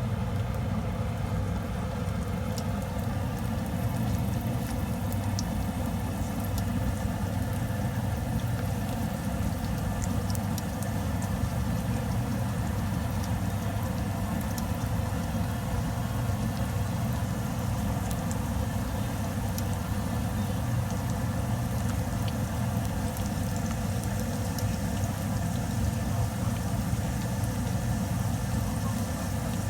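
Fugu karaage pieces deep-frying in oil, with scattered small crackles over a steady low hum.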